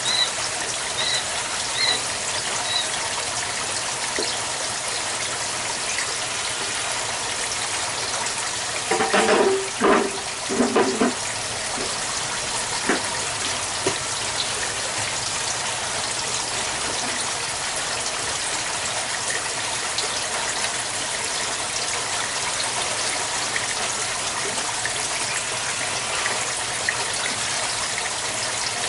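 Water running steadily as it pours from the aquaponics system's PVC return pipe into the lava-rock grow bed. About nine seconds in there is a brief burst of louder sounds lasting about two seconds.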